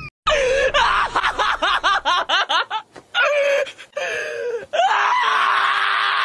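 A high-pitched voice laughing in quick rising bursts, then a long, harsh scream held for about three seconds.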